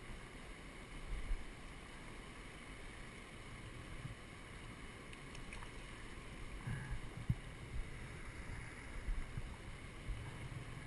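River current flowing steadily over rocks, a constant rush of moving water, with scattered low thumps on the microphone.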